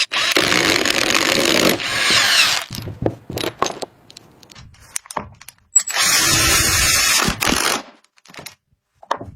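Power tool running in several short bursts of a second or two each, with scattered clicks and knocks between them.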